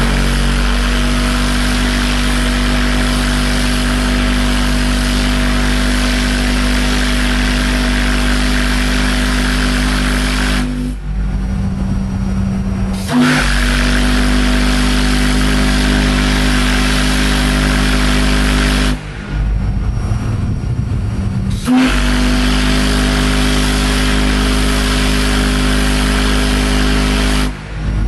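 Homemade steel organ-pipe steam whistle, 8 inches across with a 72-inch bell, blown in three long blasts: the first about eleven seconds, then two shorter ones. Each is a single very deep steady note with a hiss of escaping steam.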